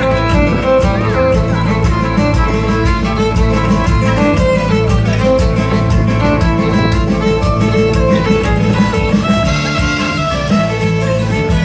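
Music with a steady beat, playing throughout.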